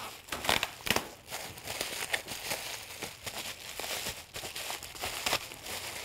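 Clear plastic bag crinkling and rustling in irregular crackles as it is handled.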